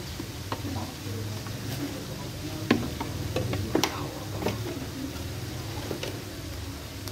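Sliced onions frying in hot ghee in a large aluminium pot: a soft steady sizzle under a low hum, with scattered light clicks and ticks.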